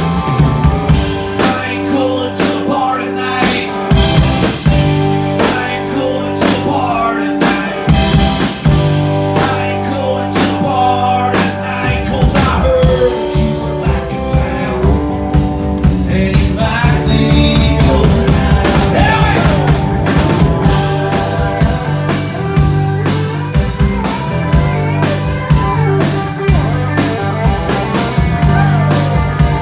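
Live rock band playing a song: drum kit, acoustic and electric guitars and keyboard, with a steady beat.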